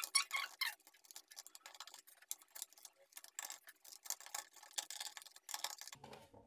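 Screws being driven into a plastic modular switch board with a hand screwdriver: a run of small, irregular clicks and ticks from the screwdriver and screw turning against the plastic.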